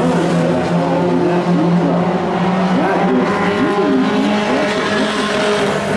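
A pack of Pro 4 race trucks' engines running at race speed, several engines at once, their pitch rising and falling over and over as the trucks pass and lift and accelerate through the turns.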